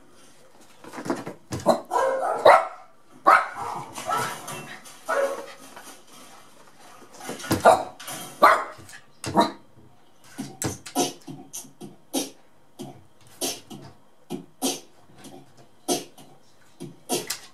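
Small white dog barking over and over at the television, a long string of short barks with brief pauses, the first few seconds' calls longer and more drawn-out.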